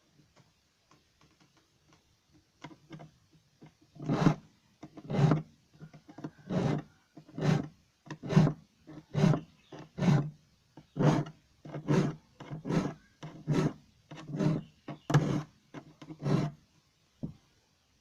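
Hand file rasping across the teeth of a hand saw in steady, even strokes, about one a second and some fourteen in all, starting a few seconds in after a few light taps: a dull wood saw being sharpened.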